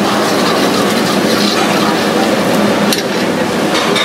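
A paste frying in hot fat in a kadai over a gas burner: a steady sizzle with burner noise, as a metal ladle stirs and strikes the pan twice near the end.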